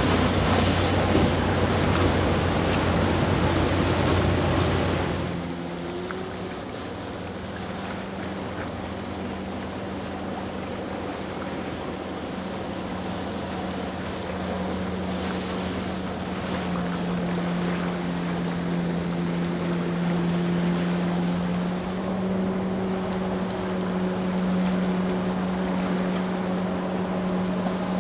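Motorboat running through inlet chop, with loud water and wind noise for about the first five seconds. After an abrupt drop, a steady engine hum takes over and rises a little in pitch twice.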